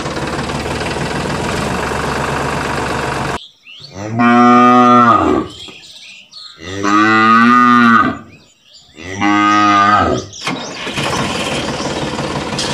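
A tractor engine running steadily cuts off abruptly about three seconds in; then a cow moos three times, each a long call of about a second, and a steadier noise returns near the end.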